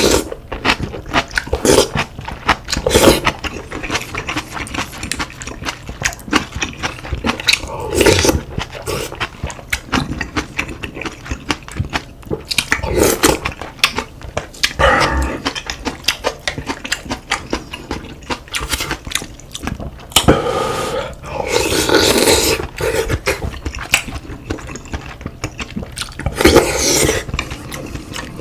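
Close-miked eating of soup and kimchi: steady chewing full of small clicks and crunches, with a louder slurp every few seconds and the longest one about three-quarters of the way in.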